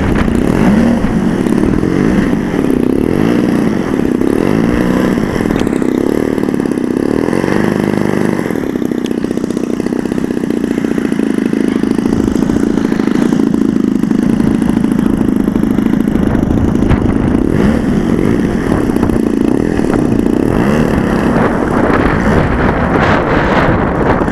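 Engine of a radio-controlled model aircraft running in flight, its pitch wavering up and down as the plane manoeuvres, with wind buffeting the microphone.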